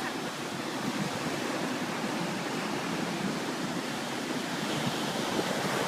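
Ocean surf on a beach: a steady, unbroken wash of breaking waves.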